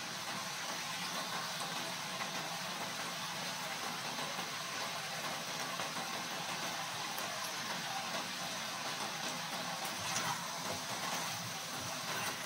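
Chicken feet sizzling and bubbling in a reducing soy sauce and brown sugar glaze in a pan, a steady hiss, with a few brief spatula scrapes against the pan near the end.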